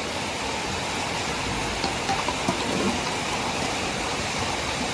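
Rain pouring steadily, an even hiss of water with faint children's voices in it a couple of seconds in.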